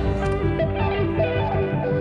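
Music: a melody of short stepping notes over a steady low bass line.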